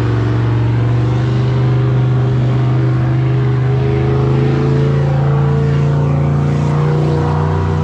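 Mini rod pulling tractor's engine running loud and steady, its pitch creeping slightly upward.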